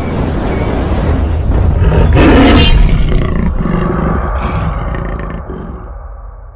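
Cinematic intro sound effect: a deep animal-like roar over a heavy low rumble, swelling to its loudest about two seconds in and then fading away.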